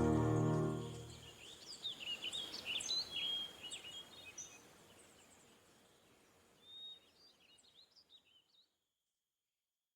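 Gentle guitar music fades out in the first second, then birds sing in short, quick, high chirps that thin out and stop a little before the end.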